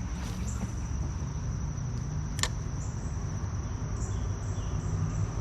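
Insects, cricket-like, keep up a steady high-pitched trill over a low rumble, with one sharp click about two and a half seconds in.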